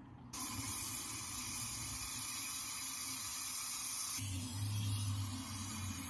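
Gas brazing torch hissing steadily. It comes on abruptly about a third of a second in, and a low hum joins about four seconds in.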